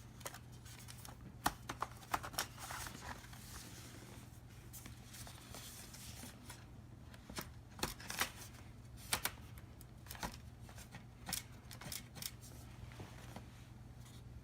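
Scattered small clicks, taps and scrapes of a screwdriver and hands working on the bottom panel of an Alienware 17.3-inch laptop, as its screws are taken out to open it.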